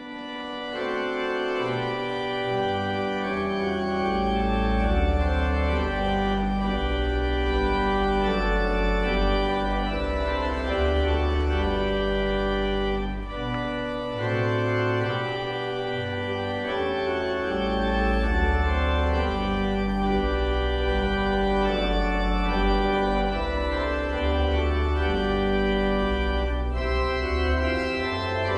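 Organ playing slow, sustained chords over deep held bass notes, changing every second or two, from an archival recording of a school carol service.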